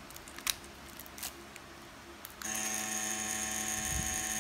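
Cartridge tattoo machine switched on about two and a half seconds in and running with a steady hum, after a couple of light clicks from a needle cartridge being handled at the machine. It is being run to show how stable the cartridge needles are.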